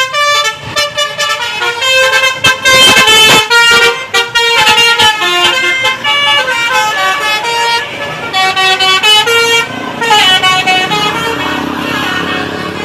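Bus's Basuri 'telolet' multi-tone musical air horn playing a fast tune, its notes jumping in pitch several times a second. Near the end the horn stops and the sound fades away.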